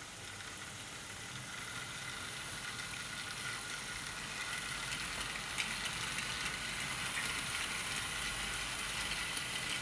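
OO gauge model steam locomotive and its wagons running along the track: a faint, steady whir of the small electric motor with the rattle of wheels on the rails, growing slightly louder.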